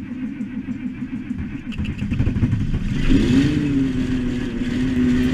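1971 Oliver 1855 turbo-diesel tractor engine running just after a cold start; its note rises and settles to a steady pitch about three seconds in.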